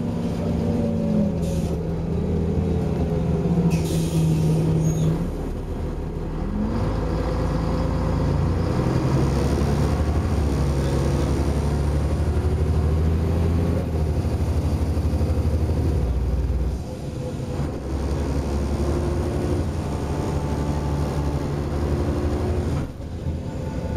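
Volvo Olympian double-decker bus heard from inside the passenger saloon: its diesel engine pulls the bus along, the note rising and then stepping down at gear changes about five, seventeen and twenty-three seconds in. A short hiss of air comes about four seconds in.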